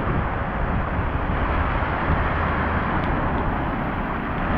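Steady rushing noise of a rainy street: rain and car tyres hissing on wet asphalt, over a low rumble.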